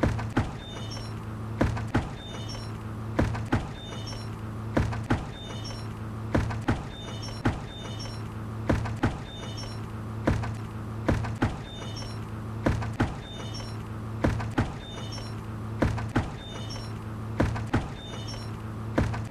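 A bucket knocking and creaking over and over in an even rhythm, about one knock or pair of knocks every second and a half, with a faint high squeak recurring with each knock. A steady low hum lies underneath.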